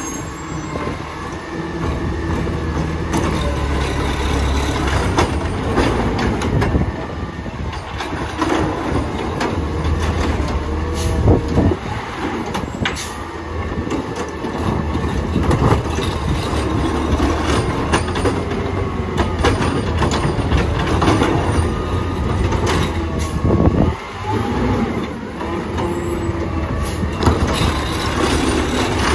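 McNeilus ZR automated side-loader garbage truck's diesel engine running at low speed as the truck pulls slowly up alongside a row of carts, with scattered clanks and brief squeaks from the body and brakes.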